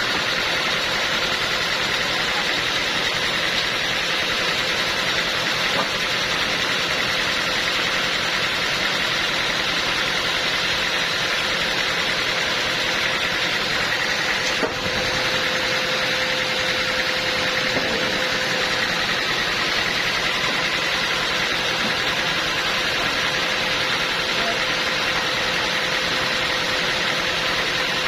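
Portable sawmill running steadily: a constant engine-and-machinery noise with a faint steady whine, dipping briefly about halfway.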